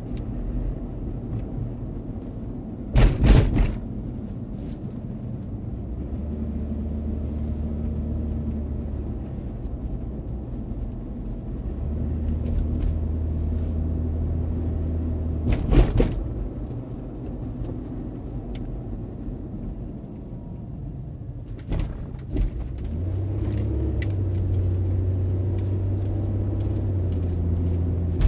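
Car engine and road rumble heard from inside the cabin while driving, a steady low hum that swells in stretches. It is broken by three sharp knocks spread through it.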